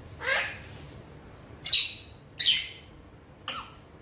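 Congo African grey parrot giving four short whistled chirps, each a quick sweep in pitch, spaced out over the few seconds; the second is the loudest and the last the faintest.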